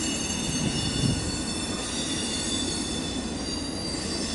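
Double-stack intermodal freight train rolling steadily across a stone arch viaduct: a continuous rumble of wheels on rail, with thin, high wheel squeal held over it.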